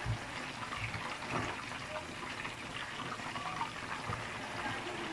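Whole marinated chicken deep-frying in a pan of hot oil, the oil bubbling and sizzling steadily, with a few soft low bumps in the first second or two.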